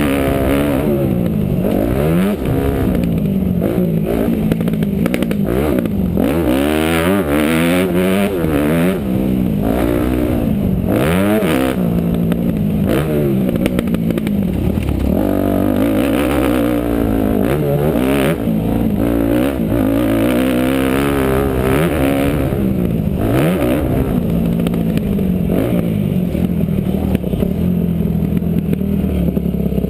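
Dirt bike engine ridden hard on a motocross track, revving up and dropping back over and over as the throttle is worked, with scattered knocks from the bumpy ride.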